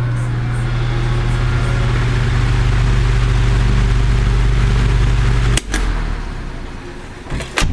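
Vintage Kuo Horng 12-inch oscillating table fan starting up on low speed: a strong motor hum, with air noise swelling as the blades come up to speed. About five and a half seconds in, a switch clicks, the hum cuts off and the air noise fades as the fan coasts down; more switch clicks come near the end.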